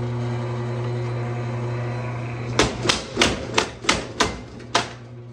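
Power hammer at work: its motor runs with a steady hum, and about two and a half seconds in the ram comes down on the Stopbox Pro pistol lockbox in a quick run of about seven blows, roughly three a second.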